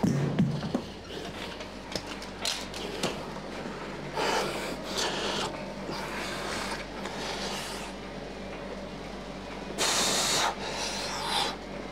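Heavy, hissing breaths coming in gusts of about a second each, with a few clicks and clanks of gym gear being handled near the start, over a steady low hum.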